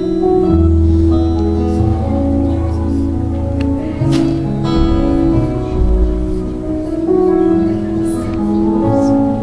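Instrumental music: sustained chords that change every second or so over a low bass line, with no singing.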